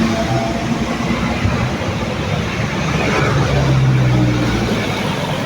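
Busy main-road traffic with a bus going by: a steady rush of engine and tyre noise, and a low engine drone that grows louder about three seconds in, then eases.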